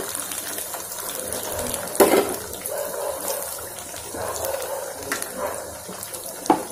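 Poha-and-spinach cutlets deep-frying in hot oil: a steady bubbling sizzle with fine crackles. A sharp knock about two seconds in, and another near the end.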